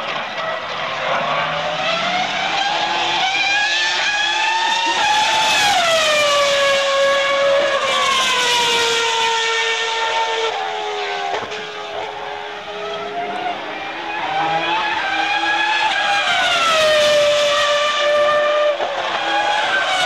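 2003 Formula 1 cars' 3.0-litre V10 engines running at very high revs. The shrill engine note falls and climbs again several times as the cars slow for the corner and accelerate out of it, with two cars overlapping at times.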